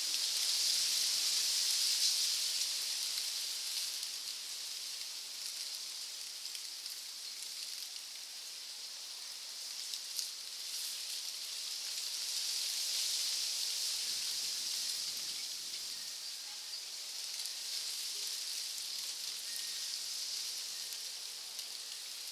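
Rain falling on rainforest foliage, a steady hiss that swells and fades, with a single light click about ten seconds in.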